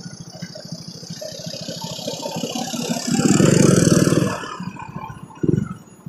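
KTM motorcycle's single-cylinder engine running under way, growing louder about three seconds in for roughly a second as it is opened up, then easing off, with a high hiss over it.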